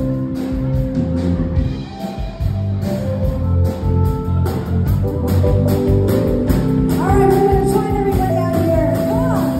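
A live band playing with electric guitar and a steady beat. About seven seconds in, a voice comes in singing long, wavering notes.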